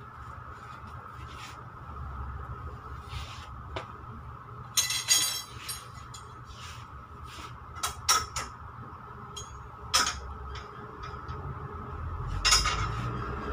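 Plastic-bagged merchandise being handled on metal display hooks: short bursts of rustling and clinking a few seconds apart, over a steady background hum.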